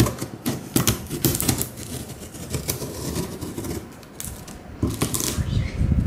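Packing tape being peeled off a cardboard box: a crackle of many rapid small clicks in uneven pulls, dipping quieter about four seconds in.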